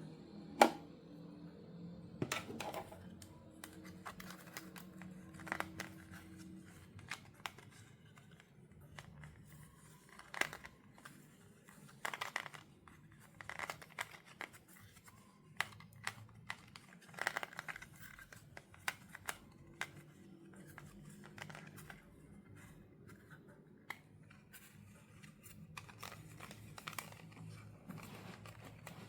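Toy packaging being handled and opened: scattered crinkling of plastic and cardboard, with sharp clicks, snips and tears every second or so.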